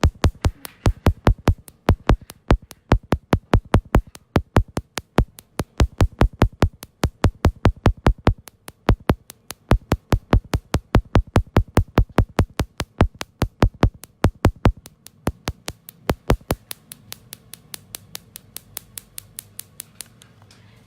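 Electronic background music with a fast drum-machine beat, about four hits a second. The low kick drops out about three-quarters of the way through, leaving lighter hits that fade near the end.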